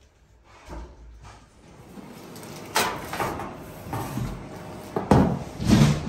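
Several knocks and clatters from objects being handled, beginning about three seconds in; the loudest two come near the end.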